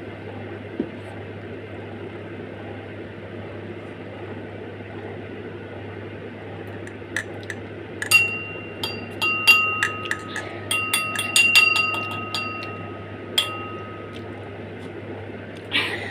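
Small glass or metal makeup containers clinking and tapping against each other, some knocks ringing briefly, in a cluster of about a dozen that starts about halfway through.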